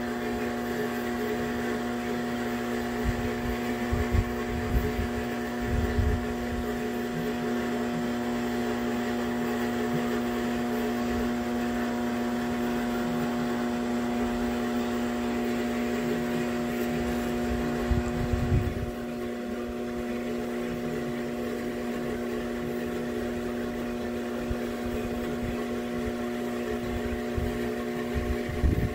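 Steady electric motor hum with several constant pitched tones, typical of a motor driving the turntable slowly, with a few dull low thumps now and then.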